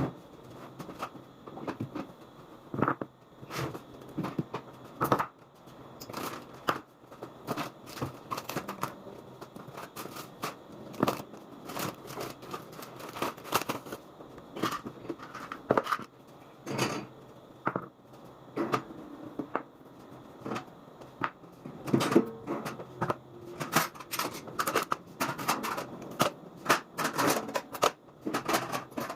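Irregular light clicks, taps and knocks, a few each second, of small hard objects being handled and set down.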